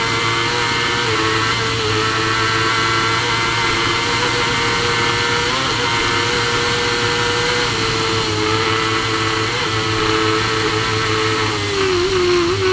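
Supersport racing motorcycle engine held at high revs at full speed, with wind rushing over the onboard microphone. Near the end the revs drop and waver as the rider backs off.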